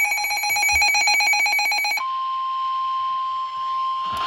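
Emergency alert tones: about two seconds of rapid warbling digital data tones (the SAME alert header), then, two seconds in, one steady unbroken alarm tone, the 1050 Hz weather-radio warning tone, which holds on.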